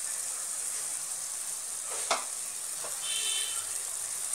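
Onions, garlic and spices sizzling steadily in hot oil in a wok. A metal spatula knocks once against the pan about two seconds in.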